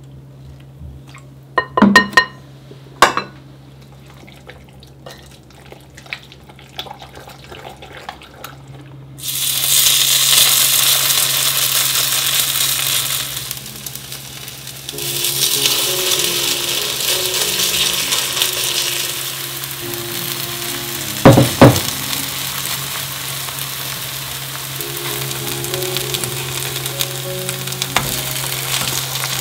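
Pancake batter sizzling as it fries in oil in a four-well pan over a gas flame, a steady hiss that starts about a third of the way in. Before it come a few clinks and knocks of batter being stirred in a bowl with a wooden spoon, and a sharp double knock of the spatula against the pan comes about two-thirds through.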